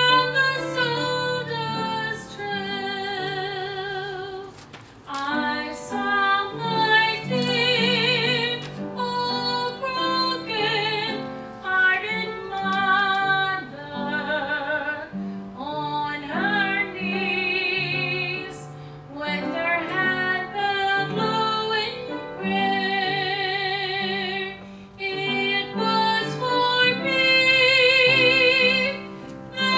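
A woman singing a gospel solo over instrumental accompaniment, her long held notes carrying a wide vibrato.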